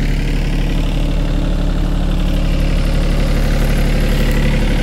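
Swaraj Target 630 compact tractor's diesel engine running steadily, driving a 4-foot rotavator that churns wheat stubble and old banana stumps into the soil.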